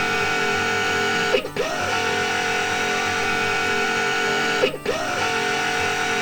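A steady mechanical hum of several held tones, like a machine sound effect, repeating in a loop with a short dip and pitch slide about every three seconds.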